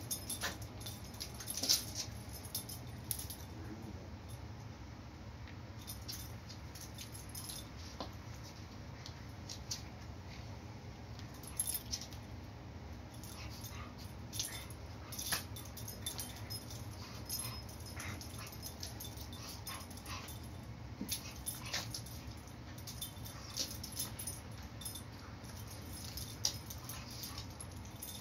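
A puppy play-chewing on a kitten: irregular scuffling and small clicks as the two tussle, over a steady low hum.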